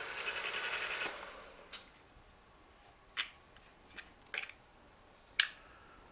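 Milling machine drilling into steel held in a vise, with a steady running noise that stops about a second in. It is followed by about five short, sharp metallic clicks and taps as parts and tools are handled at the chuck and vise.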